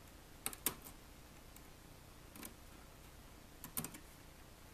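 Faint, sharp little clicks of a thin metal pick working inside a damaged ThinkPad T400 USB port, prying its bent contact prongs back into place: two about half a second in, one near the middle and a short cluster near the end.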